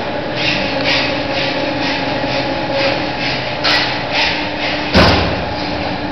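CNC punch press running with a steady machine hum, striking a regular series of punch strokes about two a second. A couple of sharper knocks follow, then a loud, heavy thump about five seconds in.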